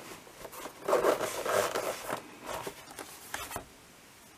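Zipper of a black EVA hard-shell drone case being run open, a rasping pull about a second in lasting roughly a second, followed by a few shorter scratchy rubs as the case is handled and the lid lifted.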